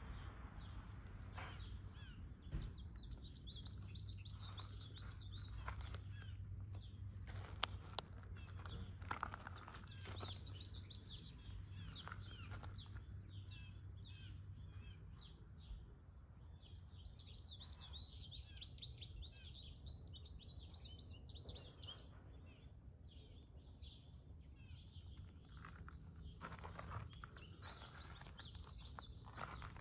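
Songbirds singing: bursts of high, rapid chirping phrases come several times, over a faint low steady hum that fades out about halfway through.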